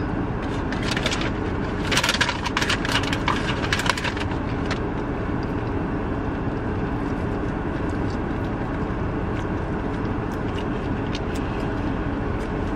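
Steady low rumble of a car's cabin, with a burst of crackling and rustling about two to four seconds in.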